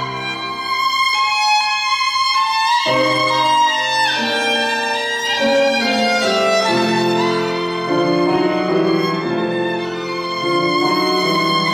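Violin playing a bowed melody of sustained notes over piano accompaniment.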